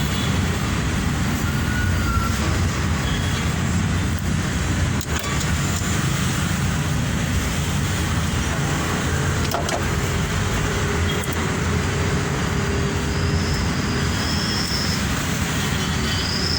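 Steady low rumble of motor-vehicle traffic and engine noise, with no clear single event.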